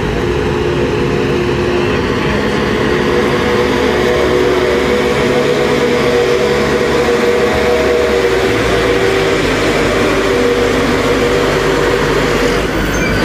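Engine of an aircraft cargo loader running steadily: a loud, continuous drone with several held hums that shift slightly in pitch.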